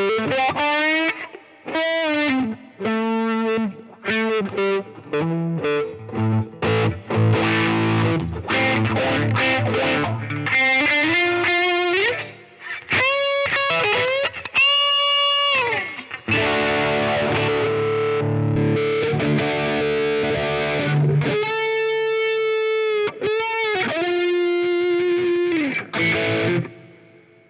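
Electric guitar lead played through a Line 6 Helix amp modeler with a pitch-shifting echo: single notes with frequent string bends and short chords. The last note fades out near the end.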